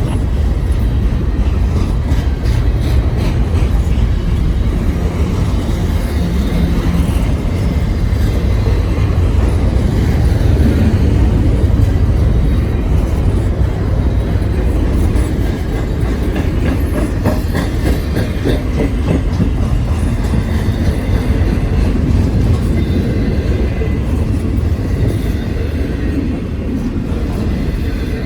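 Freight train rolling steadily past at close range: a continuous deep rumble of the cars on the rails with light clicking from the wheels.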